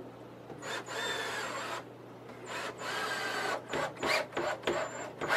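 Cordless drill driving a screw at an angle into 2x4 framing: two runs of the motor of about a second each, whining as the screw bites into the wood, then a string of short trigger pulses near the end as the screw is seated.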